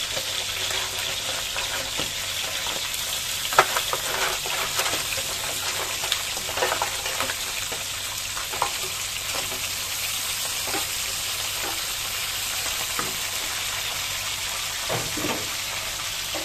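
Mud crabs sizzling as they are scraped from a metal tray into a hot aluminium wok of oil. Shells clatter and a wooden spatula knocks against the tray, with the sharpest knock about three and a half seconds in.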